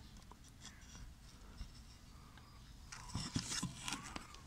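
Handling noise: after a quiet stretch, a cluster of short scrapes and clicks about three seconds in, from a hand working at a wooden nest box on a wire cage.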